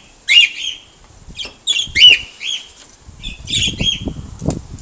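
Aviary of pet cockatiels and budgies calling: loud, short, harsh chirps about once a second. Near the end there is a low fluttering rustle, like wings flapping.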